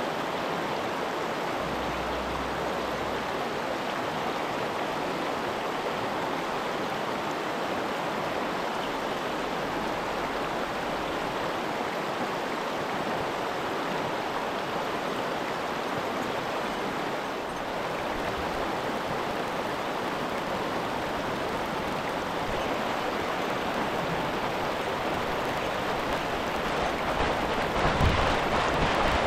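Mountain stream rushing over rocks in a gorge: a steady, even hiss of running water. A few low thumps stand out near the end.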